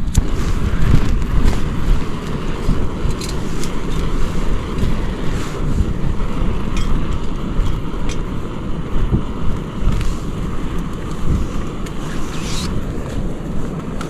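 Strong wind buffeting an MSR Hubba Hubba NX tent: a loud gusting rumble with frequent sharp snaps of the flapping tent fabric.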